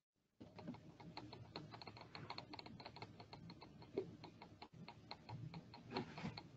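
Computer keyboard keys clicking in a rapid, uneven run, starting about half a second in.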